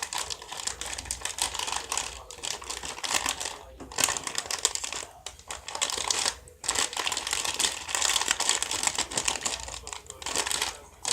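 Plastic snack wrapper crinkling in irregular bursts as it is handled, with a few short pauses.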